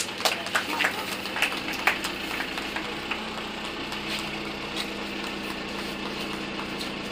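A steady mechanical hum, like a small engine running, with a quick run of sharp clicks in the first two seconds.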